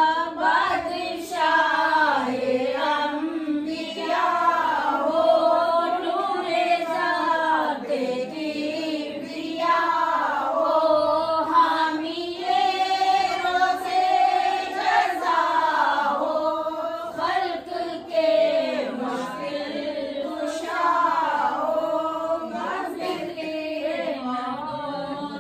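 A group of women singing a devotional naat together in unison, unaccompanied, reading the words from small booklets.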